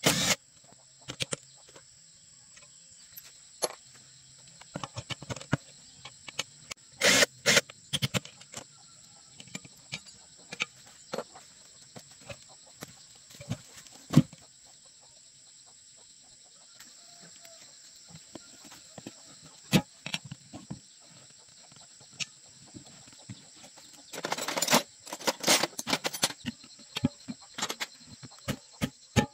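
Metal hand tools knocking and clanking on a small tractor's steel wheel rim while the tyre is being taken off, with a dense cluster of knocks a few seconds before the end. Near the end this turns into quick even taps, about three a second.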